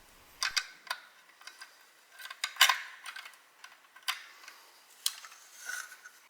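Small metal parts of a pneumatic nail gun clicking and tapping as they are handled and fitted during reassembly. There are about a dozen light clicks, the sharpest about two and a half seconds in.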